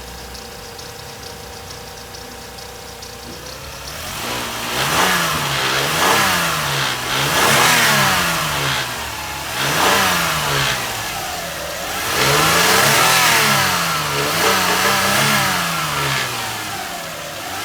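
Toyota 1MZ 3.0-litre V6 engine idling steadily, then blipped repeatedly from about four seconds in, its pitch rising and falling about seven times.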